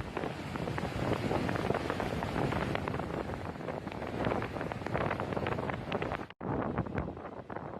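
Strong storm wind blasting the microphone: a dense rushing noise full of crackles. It cuts out for an instant about six seconds in, then carries on.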